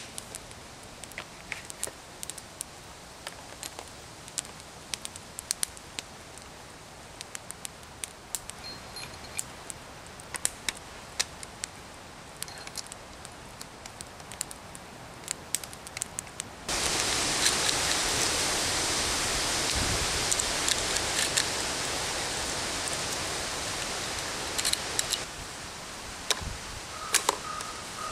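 Campfire crackling with many sharp pops. About two-thirds of the way through, a loud steady rushing hiss comes in suddenly and covers it until near the end.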